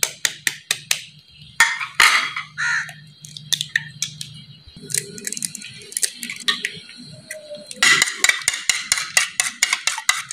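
Eggs being cracked by tapping the shells with a metal utensil, then beaten in a bowl, the utensil clicking quickly against the bowl, about six strokes a second, from near the end.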